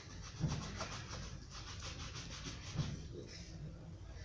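Shoe brush scrubbing Kiwi polish onto a black school shoe in rapid back-and-forth strokes, a faint steady rubbing.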